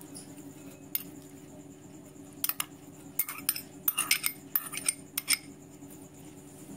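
A spoon clinking and scraping against bowls as grated carrot is tipped from a small bowl into a larger one. There is a single tap about a second in, then a run of quick clinks from about two and a half to five and a half seconds.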